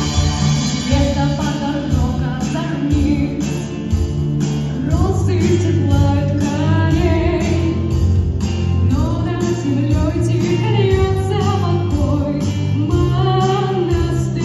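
Rock band playing live with a lead vocal: a sung melody over electric guitar, bass and a steady drum beat.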